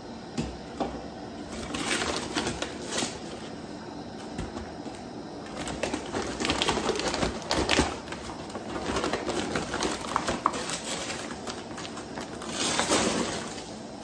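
Gritty rasping and scraping of granulated sugar being worked into a pot of thick, hot sugar syrup to make bee fondant, coming in several bursts of a second or two with small clicks.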